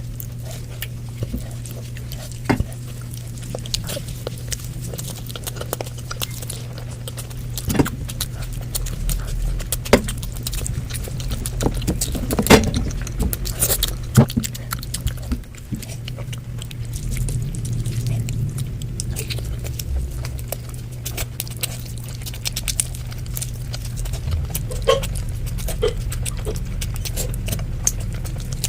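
A person eating close to the microphone: chewing with scattered wet mouth clicks and smacks, over a steady low hum.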